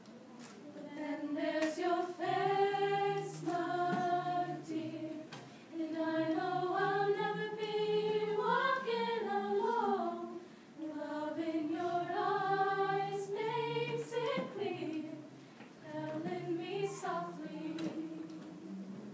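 Mixed choir of young men and women singing unaccompanied, in slow held phrases of about five seconds with a short breath between each.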